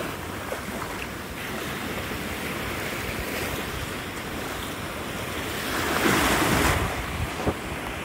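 Gulf of Mexico surf washing in over the sand, a steady wash with one wave surging louder about six seconds in. Wind buffets the microphone.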